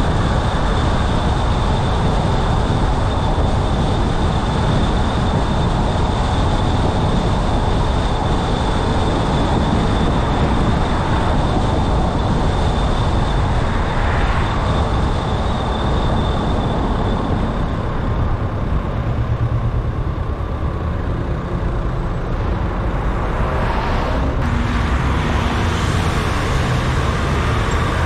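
A car driving on city streets: a steady rumble of tyre, road and engine noise, with a thin high whine that fades out around the middle.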